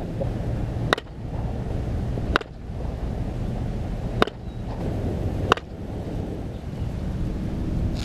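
Sharp, ringing cracks of softballs struck by a bat, five of them about one and a half to two and a half seconds apart, over a steady rumble of wind on the microphone.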